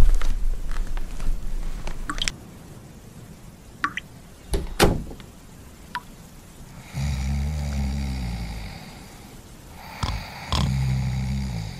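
A low rumble at first, then a few sharp clicks of a door being opened. In the second half, a man snores twice, each snore lasting one to two seconds.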